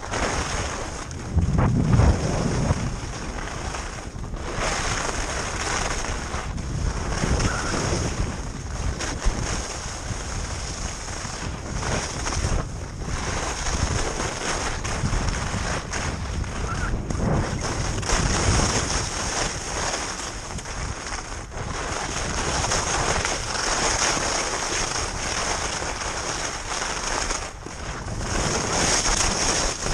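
Skis scraping and sliding over hard-packed snow during a fast descent, mixed with wind rushing over the microphone. The hiss swells and eases in uneven surges, with a heavier low rumble of wind about two seconds in.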